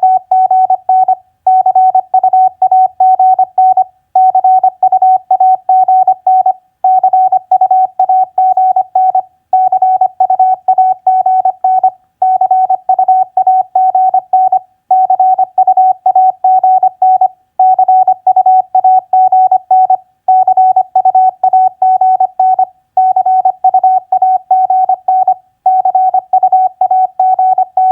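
Morse code sent at 25 words per minute as a single steady tone keyed rapidly on and off, spelling common QSO abbreviations such as TU, FB and CUAGN. The code comes in groups of about two and a half seconds with short pauses between them, repeating at an even pace.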